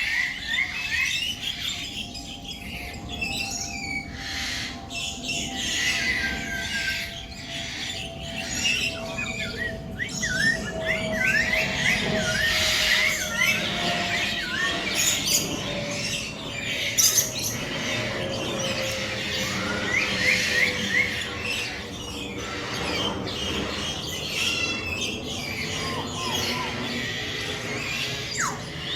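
Many birds chirping and squawking together in an aviary, with short quick notes and repeated call phrases overlapping throughout. Underneath runs a steady hum that slowly drops in pitch.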